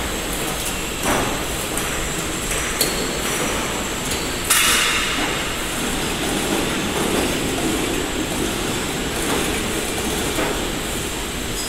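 IBR roof panel roll forming machine running, steel sheet passing through its forming roller stations. A steady mechanical noise is broken by occasional sharp metallic knocks, the loudest about four and a half seconds in.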